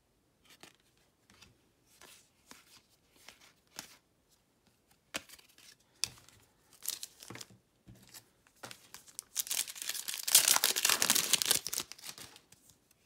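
Trading cards rustle and tap as they are handled and set down. About two-thirds of the way in, a foil-wrapped Donruss basketball card pack is torn open: a crinkling rip lasting a couple of seconds, the loudest sound here.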